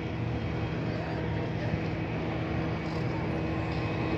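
Steady mechanical drone of a running machine, with a few constant low hum tones under it.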